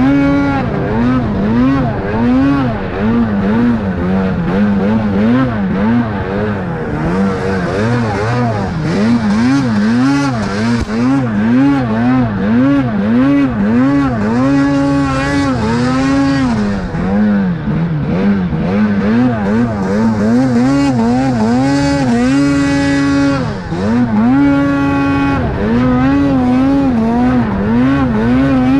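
Snowmobile engine running under load through deep snow, revving up and down about once a second as the throttle is worked, with a couple of longer high-rev pulls.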